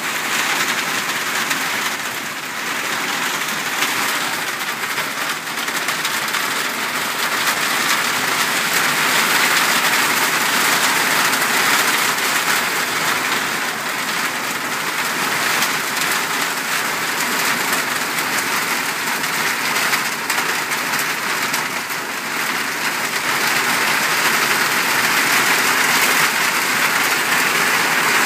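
Heavy monsoon rain pouring down on pavement and yard, a dense steady hiss that swells and eases slightly.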